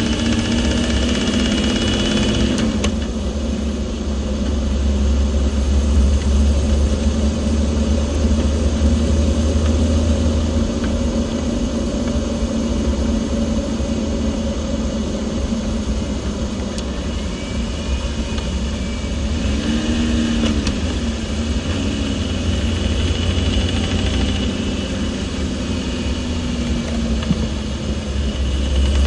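Chevrolet Silverado 2500HD's 6.0 LQ4 V8 and rebuilt NV4500 manual transmission running under way, with a heavy low rumble and engine pitch changes a couple of seconds in and again about two-thirds through. The sound is of the third-gear knocking that has shown up in the rebuilt NV4500.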